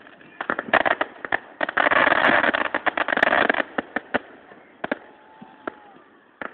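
Fireworks going off: a run of sharp bangs that builds about two seconds in into a dense, crackling barrage. It then thins to scattered single bangs and grows quieter near the end.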